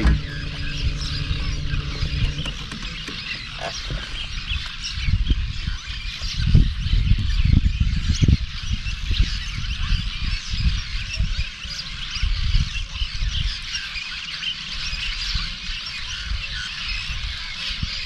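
A flock of birds under a bridge chirping and calling over one another in a continuous racket. Irregular low thumps and rumbles run underneath, loudest a few seconds in, and a low steady hum stops about two seconds in.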